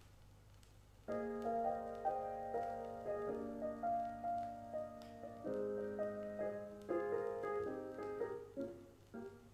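Jazz piano playing chords from a vinyl LP on a turntable. The piano comes in about a second in, after a moment of quiet.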